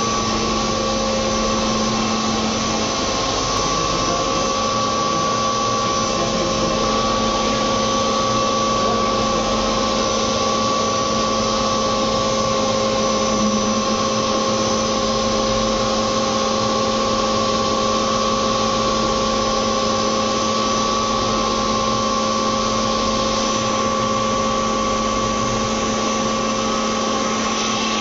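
CNC machine running steadily: a constant machine hum and whine over a noisy rush, with no pauses or knocks.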